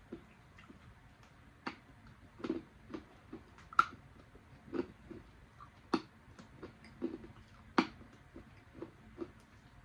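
Candy necklace beads being bitten off and crunched between the teeth: a run of irregular, crisp clicks and crunches, with the sharpest ones just before four seconds and near eight seconds in.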